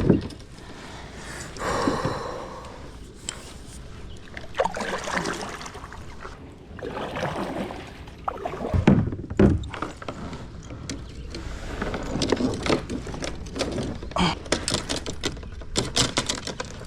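Fishing gear being handled and stowed in a kayak: irregular knocks, clicks and rustling against the boat, with the clicks coming thicker near the end.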